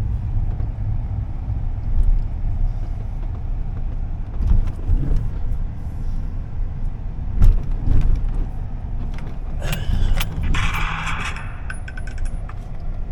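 A vehicle running with a steady low rumble and a few short knocks, and a brief jangle about ten seconds in.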